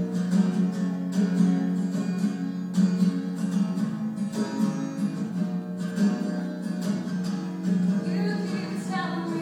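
Acoustic guitar strummed live in a steady rhythm, a song's instrumental passage. A woman's singing voice comes in near the end.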